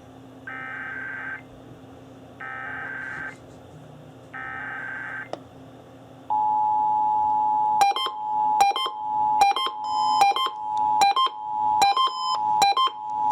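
Emergency Alert System test received over radio. It begins with three short bursts of SAME digital header data, each just under a second, about a second apart. About six seconds in, the steady EAS two-tone attention signal starts. From about eight seconds in, a receiver's alert beeps roughly every 0.8 s over the tone.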